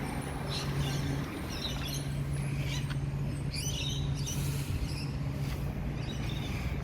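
A steady low mechanical hum, like an idling engine or motor, with short bird chirps over it.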